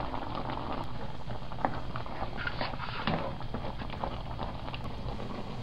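Hamburger Helper (pasta, sauce, water and browned ground beef) bubbling in a skillet as it comes up to a boil: a steady crackle of many small pops.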